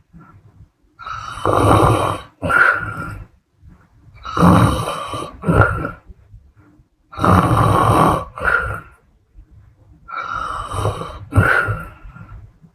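A woman snoring in her sleep: four rough snores about three seconds apart, each a longer snore followed at once by a short second one.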